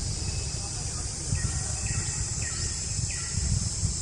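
Steady high-pitched drone of insects in the trees, with wind rumbling on the microphone. Four short falling chirps come in the middle.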